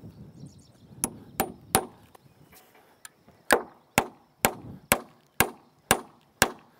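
Framing hammer driving big 30d ring-shank nails into a wooden truss and post: three quick blows about a second in, then a steady run of blows about two a second, each with a short metallic ring.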